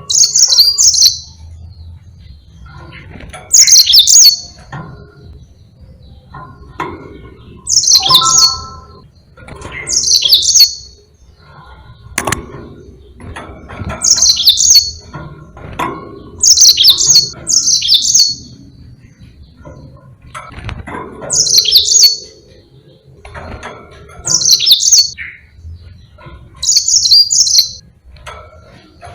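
Yellow-fronted canary (Mozambique canary) singing loud, high-pitched phrases of about a second each, repeated every two seconds or so, some of them in quick pairs.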